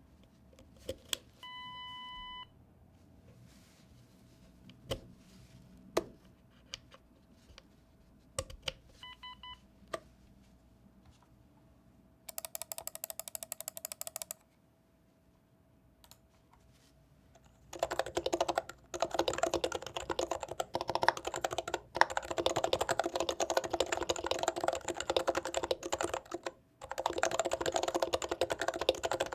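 Typing on a Norbauer Seneca mechanical keyboard with medium-weight domes: scattered single keystrokes and two short electronic beeps at first, a brief burst of keystrokes about halfway in, then fast continuous typing from about two-thirds of the way through, with one short pause near the end.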